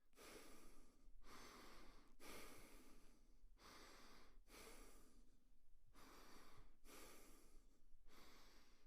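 Quiet, quick breathing: about eight noisy breaths in a row, roughly one a second.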